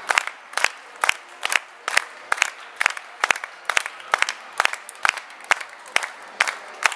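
Audience clapping in unison, a steady beat of about two claps a second, over a crowd murmur.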